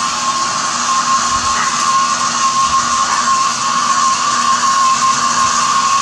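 Small handheld hair dryer running steadily: a constant blowing hiss with a steady high whine from its motor.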